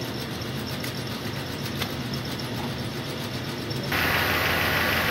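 Engine idling with a steady low hum. About four seconds in, the sound steps up suddenly, louder and with a strong hiss.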